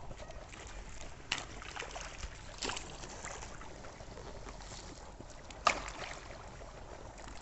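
A hoe chopping and scraping into wet mud in a flooded irrigation furrow, with three sharp strikes, the last and loudest near the end, over a steady wash of running irrigation water.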